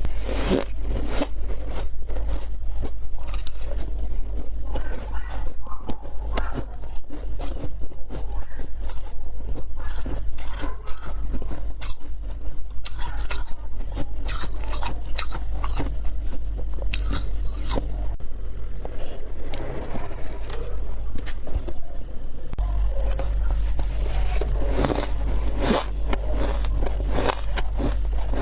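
Humidifier frost being scraped up with a spoon and bitten and chewed: a dense run of crisp crunches and scrapes, over a steady low hum.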